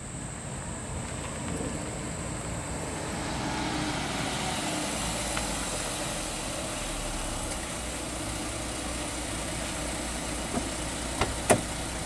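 Jeep Grand Cherokee SUV pulling up and idling, a steady engine and road noise. Near the end come a few sharp clicks as the front passenger door is unlatched and swung open.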